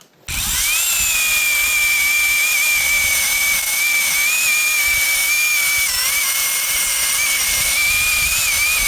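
Battery-powered chainsaw motor spinning up and then running free at a steady speed with a high whine, dipping briefly about six seconds in.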